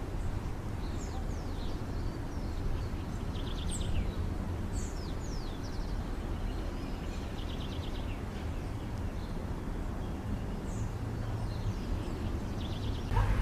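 Small birds calling outdoors: scattered high chirps, short down-sliding whistles and several brief rapid trills, over a steady low rumble of background noise.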